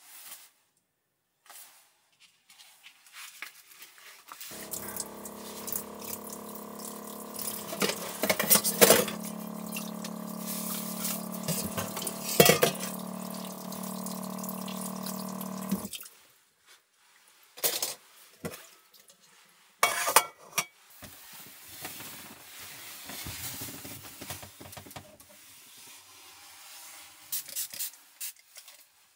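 Water running from a small sink tap with a steady hum underneath. It starts about four seconds in and cuts off sharply after about eleven seconds, with a couple of clatters in the sink while it runs. After that come scattered light knocks and handling sounds.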